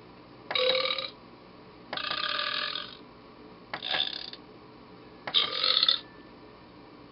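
Recorded belches played through the small speaker of a battery-powered prank sound device: four separate belches, each about a second long, the second the longest, with short pauses between them.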